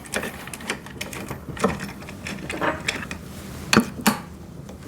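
Small metal clicks and knocks of bolts and hand tools being fitted while bolting wheels onto a wood chipper's frame, irregular, with two louder knocks a little before the end.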